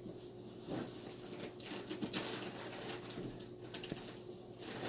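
Faint scattered taps, clicks and rustles of a toy's plastic packaging and papers being handled, over a faint steady hum.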